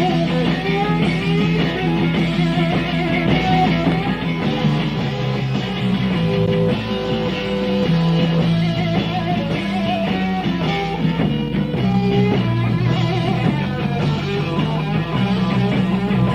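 Live rock band playing an instrumental passage without vocals: electric guitar lines over bass and drums.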